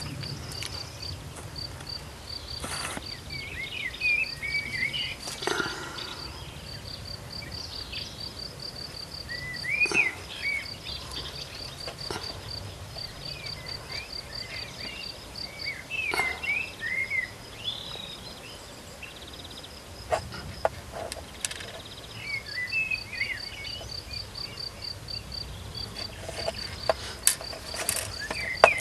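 High-pitched insect chirping in rapid pulse trains that stop and start, with small birds calling now and then. Every few seconds a sharp click or tap comes from plastic tackle boxes being opened and handled, louder than the background.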